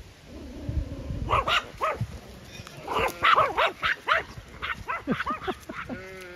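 Small dogs yapping with rapid, high-pitched barks as they chase galloping horses, starting about a second in and going on in quick runs.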